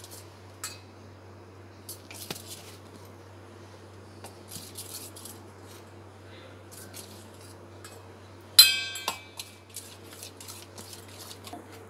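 Steel spoon scraping and clinking against a stainless steel bowl while stirring wheat flour into jaggery water, in scattered light strokes. One much louder ringing clink of metal on metal comes about three-quarters of the way through.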